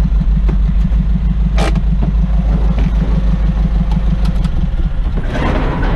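Truck engine running with a steady low throb. There is a sharp click about one and a half seconds in, and about five seconds in the throb gives way to a rougher, noisier sound.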